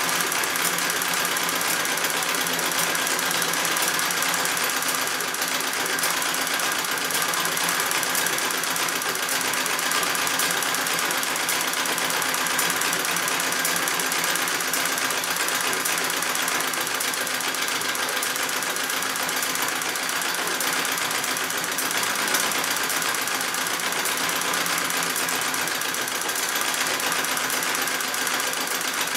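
Singer 66 red eye treadle sewing machine running steadily, stitching through a quilt during free-motion quilting, with a fast, even clatter.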